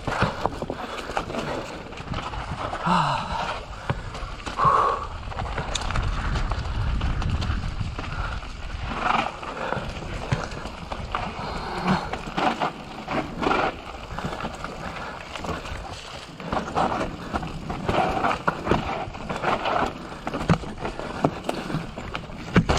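Mountain bike clattering down a rocky trail: tyres crunching and knocking over loose rock, with the bike rattling in irregular bursts of knocks. A low rumble swells in the middle stretch.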